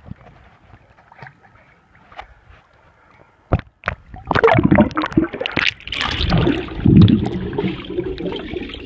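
Swimming-pool water splashing and sloshing right at the microphone of a phone held at the surface, heavy and irregular from about four seconds in. It turns to muffled underwater gurgling as the phone goes under. Before that it is mostly quiet, apart from one sharp knock.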